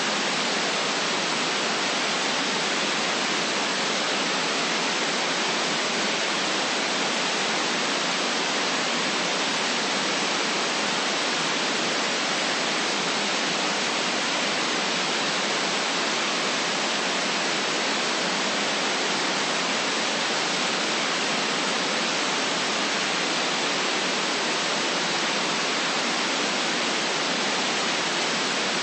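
Continuous static hiss, steady and unchanging, like an untuned radio or TV.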